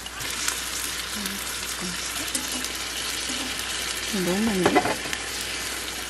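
Noodles sizzling in a hot frying pan while being stirred with metal tongs, a steady frying hiss with a few clicks of the tongs. A short wordless voice sound rises and falls about four and a half seconds in.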